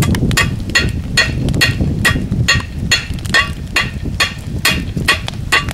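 Hand hammer striking hot steel rebar in a steady rhythm, about two and a half blows a second, each blow with a short metallic ring.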